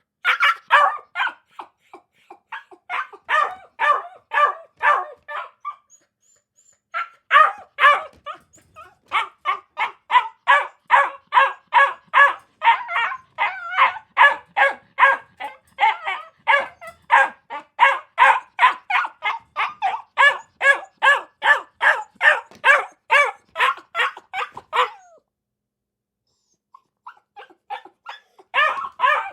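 A dog barking in rapid, steady runs of about three barks a second. The barking breaks off briefly about six seconds in, runs long without a pause, stops for a couple of seconds, then starts again near the end.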